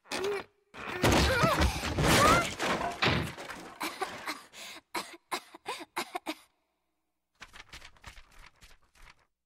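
An old door pulled open, then a loud rush as a cloud of dust billows out, followed by a girl's repeated coughing in short fits, quieter toward the end.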